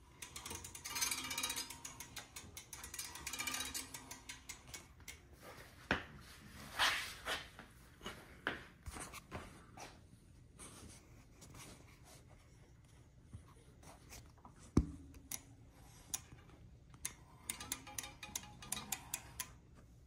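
Rear wheel of a Ride1Up Revv1 e-bike spun by hand: a whirring rub while it turns, with many irregular ticks and clanks and one sharp knock near the middle. The owner cannot tell whether the clanking comes from the brake or the freewheel.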